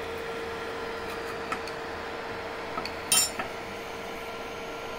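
A few light metallic clinks of kitchen utensils against cookware, the loudest a sharp clink about three seconds in, over a steady background hum.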